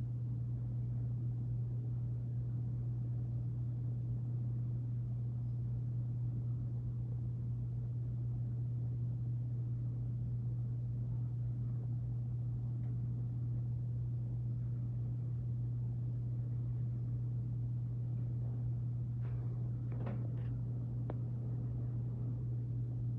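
Freight train passing outside, a steady low rumble muffled through a closed window, with a few faint clicks near the end.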